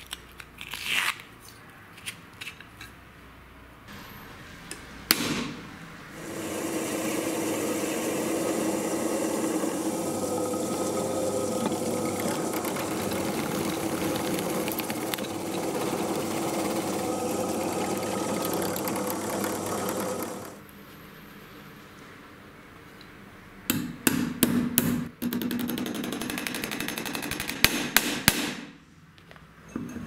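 An electric drill boring a hole through a steel pipe, running steadily under load for about fourteen seconds. Sharp clicks and knocks of metal parts being handled come before and after.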